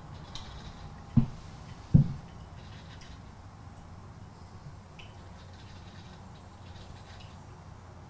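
Sowtech CM6811 3.5-bar steam espresso machine brewing: faint crackling and dripping of espresso into the glass carafe over a low steady hum. Two short low knocks about one and two seconds in.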